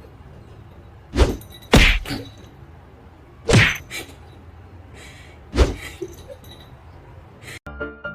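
Four sudden knocks, irregularly spaced a second or two apart, over low background noise.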